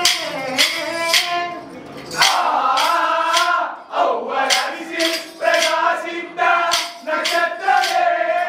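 Kolkali stick dance: short wooden sticks clacked together in a steady beat, about two strikes a second, under a group singing.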